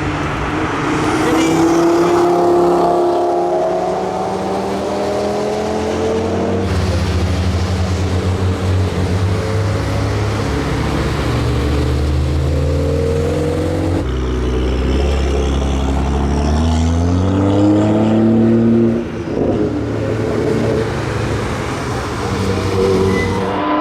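Cars driving hard past on a racetrack, engines revving up through the gears. The engine note climbs in pitch, then drops at a gear change a little before the end. The sound switches abruptly twice as one passing car gives way to another.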